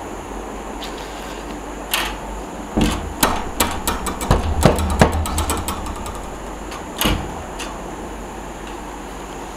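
Steel sliding door bolt knocking and rattling on its metal brackets. There is a single knock about two seconds in, then a quick irregular run of clicks and rattles for a few seconds, and one more knock near the seven-second mark.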